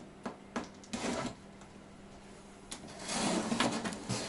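Cardboard box being opened by hand: a few sharp clicks and a short scrape in the first second or so, then a louder stretch of cardboard and packaging rubbing and sliding from about three seconds in.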